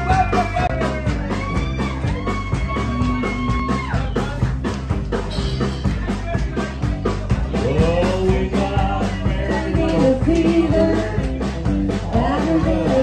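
A live band playing with electric guitar, bass guitar, drum kit and fiddle, over a steady drum beat, with singing.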